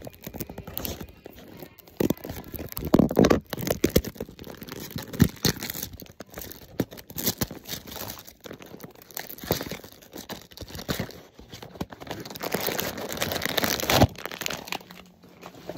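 Packaging being opened by hand: a small cardboard box and a foil wrapper cut, torn and crinkled, in irregular crackles and rustles. A louder stretch of crinkling stops abruptly about two seconds before the end.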